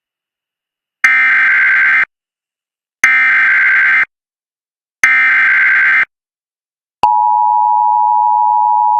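Emergency Alert System SAME header: three one-second bursts of warbling digital data tones, a second apart, followed about seven seconds in by the steady two-tone EAS attention signal. This marks the start of a new alert activation, here a National Weather Service tornado warning.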